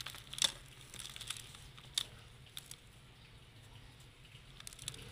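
Dry sand-cement crumbled and squeezed by hand, with loose grit pouring and pattering onto a metal tray. Among the soft sprinkling are a few sharp crunches, the loudest about half a second in and another at two seconds, then a cluster near the end.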